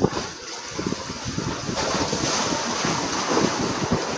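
Wind buffeting the microphone, with sea waves washing against the breakwater rocks; the wash swells about halfway through.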